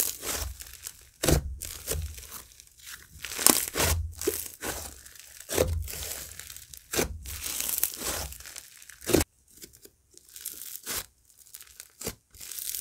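Hands squishing and stretching a butter-and-snow-fizz slime, giving irregular crackling, sizzly pops. The crackling thins out near the end.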